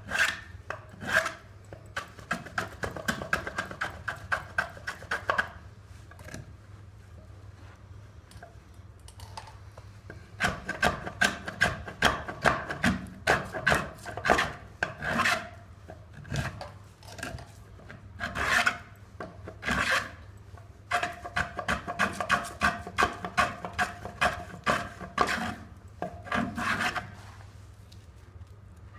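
Hand plane shaving a pine log: quick repeated scraping strokes of the blade through the wood, in runs of several seconds broken by short pauses.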